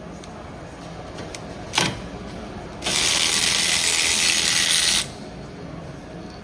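A sharp click, then a loud steady hiss lasting about two seconds that cuts off suddenly.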